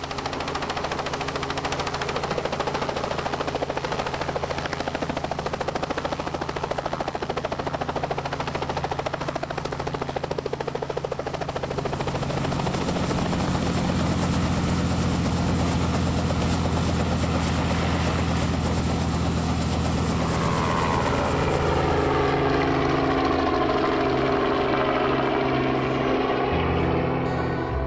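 Small helicopter running, a steady beating drone of rotor and engine. About three-quarters of the way through, its pitch begins to fall as it flies past.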